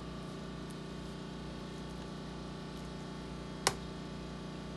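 Steady low hum of a quiet kitchen, broken by one short, sharp knock about three and a half seconds in.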